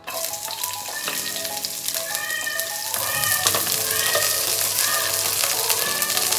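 Garlic strips sizzling in hot oil in a frying pan, the hiss starting suddenly as they hit the oil and carrying on as they are stirred with a wooden spatula. Background music plays throughout.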